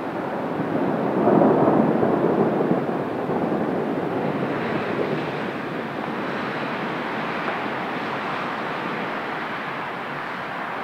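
Distant thunder rolling: it swells about a second in, then slowly rumbles away over several seconds into the steady noise of the city.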